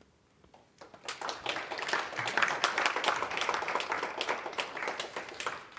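Audience applauding: many hands clapping, starting about a second in and stopping abruptly just before the end.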